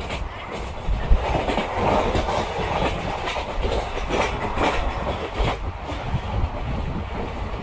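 Passenger train coach running at speed, heard through an open window: a steady rumble of wheels on the track with irregular clattering clicks as the wheels pass over rail joints.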